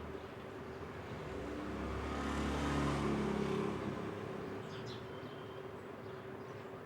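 A motor vehicle passing by, its engine sound swelling over about two seconds and then fading, over a steady low hum.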